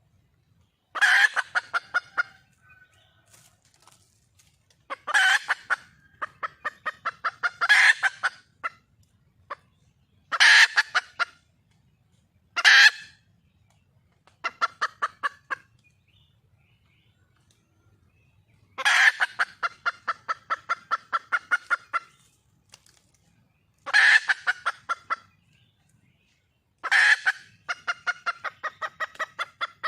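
Red junglefowl hen calling: about nine runs of quick clucks, each opening with a louder note and going on at roughly five clucks a second. It is the call a wild hen makes seeking a mate.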